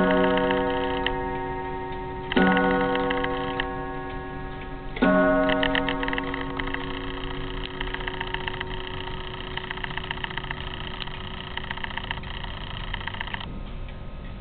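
Junghans pendulum wall clock striking the hour: three strikes about two and a half seconds apart, each ringing out and slowly fading, over the steady ticking of the movement.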